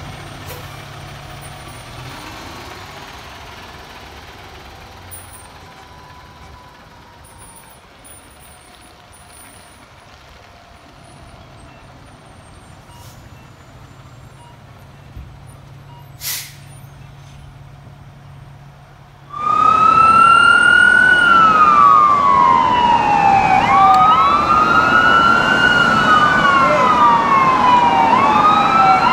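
Fire engine pulling away, its engine fading while its siren sounds faintly in the distance. About two-thirds of the way in, a loud wail siren cuts in suddenly, rising and falling in long sweeps, with overlapping sweeps in the last few seconds.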